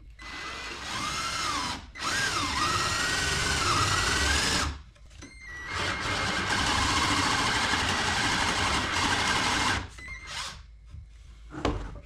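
Cordless drill drilling into a wooden birdhouse. It runs in three spells of a few seconds with short breaks between them, its whine rising and falling in pitch as the trigger is eased. Two brief blips follow near the end.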